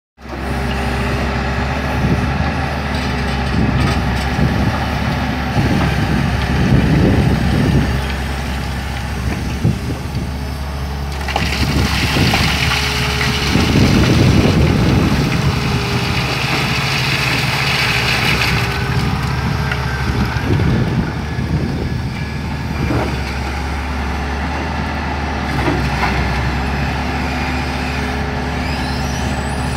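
Caterpillar 375L hydraulic excavator working rock: its diesel engine runs steadily under load, with the bucket scraping and rock rumbling. Midway a hiss rises for several seconds while a bucketful of rock spills out onto the pile.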